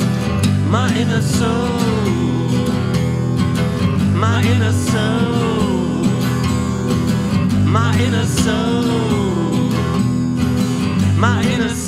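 Guitar-driven rock band playing an instrumental passage, with a lead melody that slides up and down in a phrase repeated about every three and a half seconds over a steady backing.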